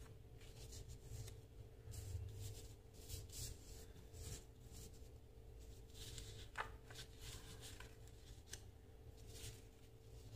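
Faint rustling and sliding of paper sheets as they are handled and laid down on a cloth-covered surface, in short soft strokes with one sharper tap about two-thirds of the way through, over a steady low hum.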